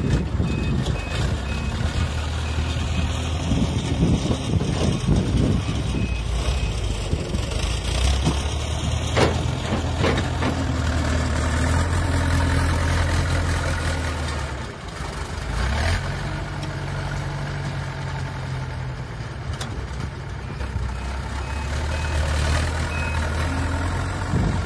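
Backhoe loader's diesel engine running and revving under load as it dumps soil and digs its front bucket into a dirt pile. A reverse alarm beeps in a few short stretches, and there are a few sharp clunks.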